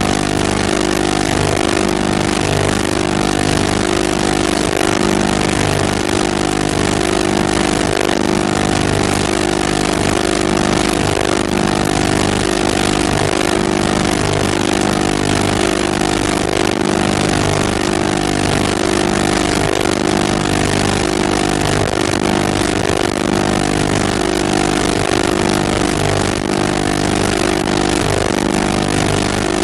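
Steady machine drone: several unchanging low hum tones over a constant hiss.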